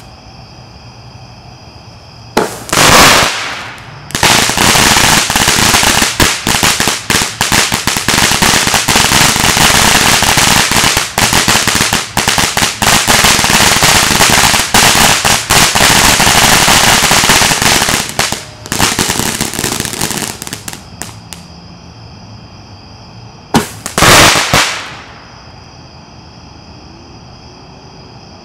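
Dominator brand fountain firework spraying: a short loud whooshing spurt about two and a half seconds in, then a long loud hiss full of crackling that fades out over a few seconds. Another short loud spurt comes near the end.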